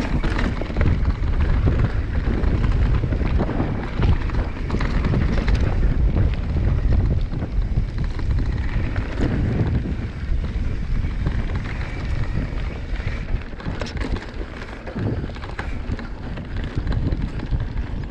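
Mountain bike descending a steep rocky trail: wind rumbling on the microphone over the rattle and scattered knocks of tyres, chain and frame over rocks.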